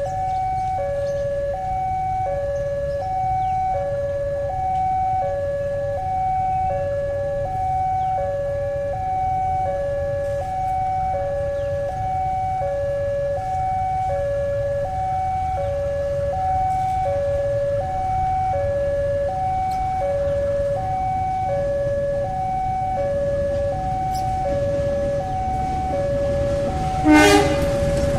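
Railway level-crossing warning siren sounding a steady two-tone alternation, high then low, about once a second, over a low rumble of traffic. A brief loud horn blast comes near the end.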